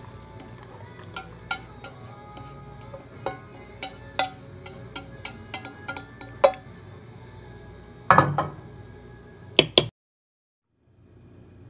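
Chopsticks clinking and tapping against a metal pot and a bowl as noodles are served out: scattered light clinks, a louder clatter about eight seconds in, and two sharp knocks just before the sound cuts off.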